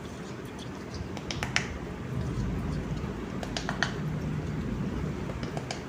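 Semolina and curd being mixed by hand in a steel bowl: a soft, steady rustle with scattered light clicks against the metal.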